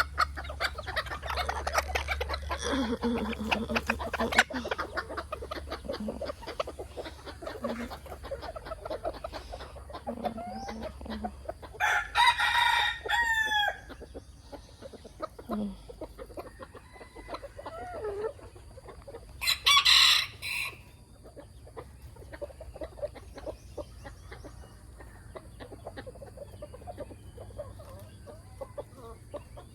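Bantam chickens clucking, with a bantam rooster crowing loudly about twelve seconds in and again about twenty seconds in.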